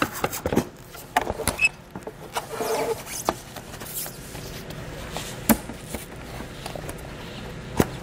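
Plastic clicks and knocks from a 2020 Jeep Cherokee taillight housing and its wiring connector being handled: a cluster in the first second and a half, then scattered single taps.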